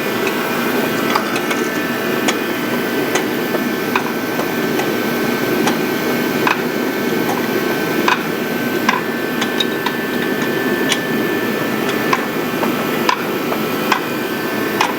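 Hand-wrenching on a car's parts: sharp metallic clicks about once a second, over a steady hum.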